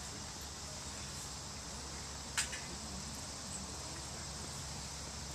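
Crickets chirping steadily in a constant insect chorus, over a steady low rumble, with one brief sharp click about two and a half seconds in.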